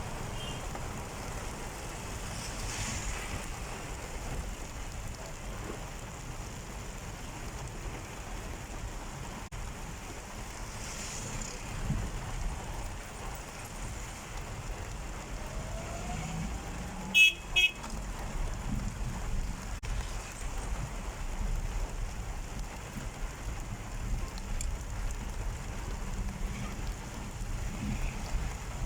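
Steady rain with a low rumble and hiss, broken about 17 seconds in by two short, loud car-horn toots.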